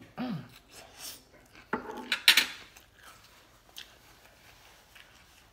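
Metal fork clattering against a plate as it is set down, a few sharp clinks about two seconds in, followed by faint rustling.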